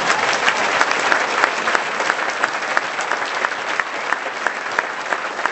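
Large audience applauding steadily: many hands clapping at once.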